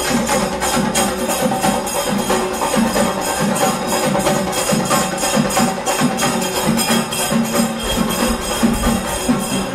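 Music with a fast, steady percussion beat and jingling, over steady sustained low tones.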